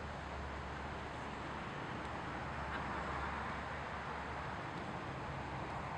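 Steady outdoor background noise: an even hiss with a low rumble underneath, with no distinct sounds standing out.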